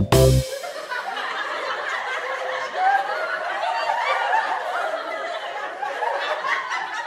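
A group of people laughing, many voices overlapping, after a music track cuts off in the first half-second.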